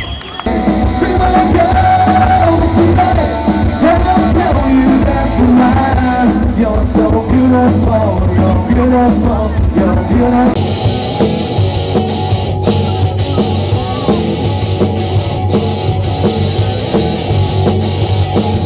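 Rock band playing live, with a sung or lead melody over bass and drums; about ten seconds in, the cymbals come in harder and the sound grows brighter.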